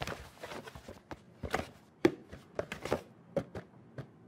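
A cardboard shoebox and plush slippers being handled: an irregular run of soft knocks, taps and scuffs, with a sharper knock about two seconds in.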